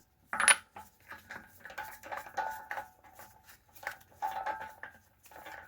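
Lug nuts being turned off a car wheel with a hand wrench: a sharp metal click about half a second in, then a run of short metallic clinks and squeaks with a slight ring.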